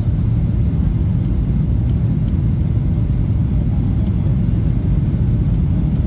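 Steady low rumble of cabin noise inside a jet airliner: engine and airflow noise, even in level throughout.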